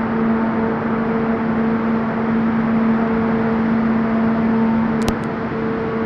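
Pelton hydraulic turbine running with a loud, steady noise and a steady hum. A couple of sharp clicks about five seconds in.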